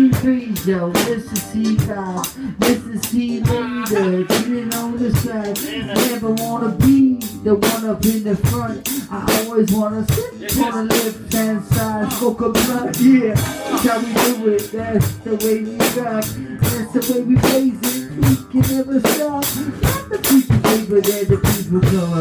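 Live band playing, the drum kit loud and close, with a steady beat of kick and snare hits over a bending melodic line from the other instruments.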